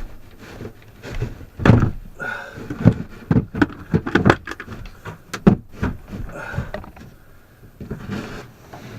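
Irregular heavy thuds and knocks in the cramped van interior as a tightly wedged bed part is banged and wrestled loose, the loudest blows about two seconds in and again about five and a half seconds in.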